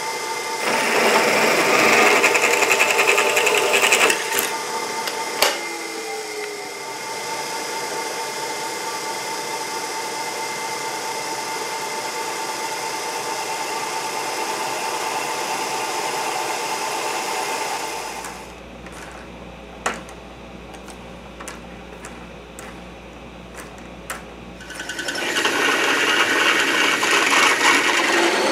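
Drill press drilling into a steel bar clamped in its vise, loud for the first few seconds while the bit cuts, then the motor running on steadily. After a quieter stretch with a few sharp clicks, a metal lathe runs near the end.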